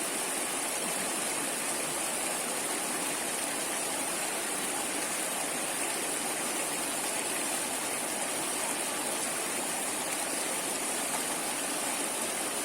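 Stream water flowing and rushing steadily, an even, unbroken wash of water noise.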